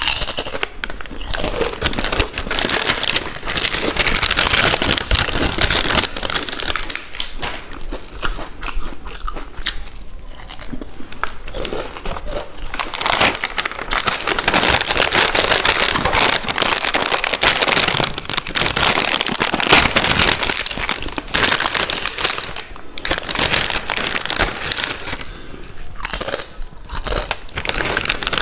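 Close-miked crunching and chewing of crisp Balaji potato wafers, a dense run of sharp cracks that goes on without a break.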